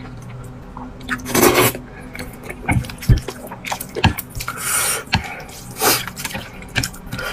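Close-miked eating of sesame-paste noodles: loud wet slurps about three times, with moist chewing and a few sharp clicks and knocks in between.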